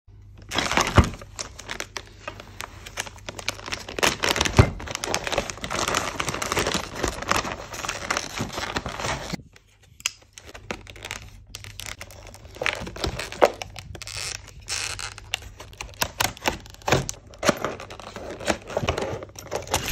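Rapid metal clicking and scraping of lock picks working inside a Master Lock 736 padlock. The clicking breaks off briefly about halfway through, then resumes.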